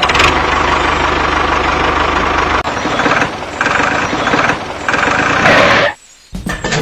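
DIY mini wheat thresher model running: a steady mechanical whir and rattle that changes about two and a half seconds in, then cuts off abruptly about six seconds in.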